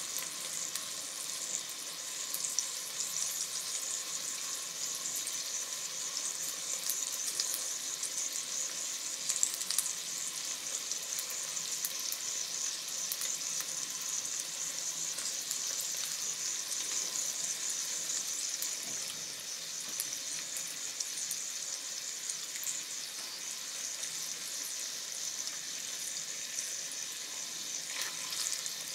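Yamagata beef steak and sliced pieces sizzling on an electric griddle plate: a steady, high sizzle dotted with small crackling pops.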